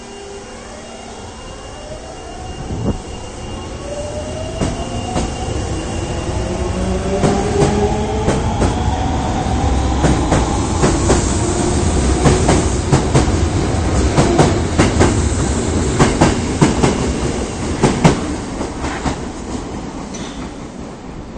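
Osaka Municipal Subway 22 series train departing a station: the traction motors whine in pitches that climb as the train accelerates, and clicks from the wheels over rail joints come faster. The sound builds, then fades near the end as the train pulls away.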